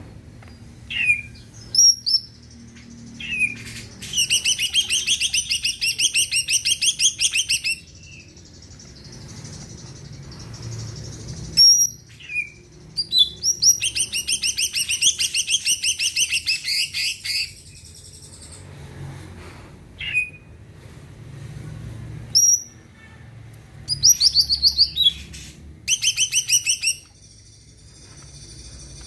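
A green leafbird (cucak ijo) singing: single sharp call notes broken by long runs of fast, evenly repeated high notes, in the rapid 'tembakan' style that bird keepers prize.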